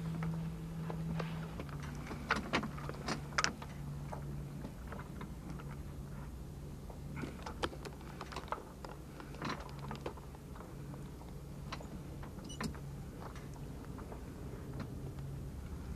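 On board a sailing sloop: a steady low hum that drops slightly in pitch about a second and a half in, with scattered sharp clicks and light rattles of gear.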